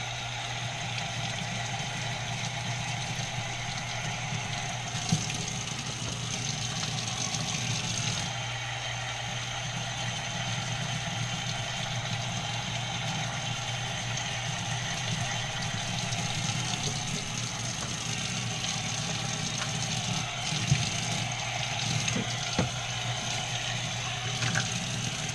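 Tap water running steadily from a utility sink faucet while canister filter media is rinsed under it, with a steady low hum underneath.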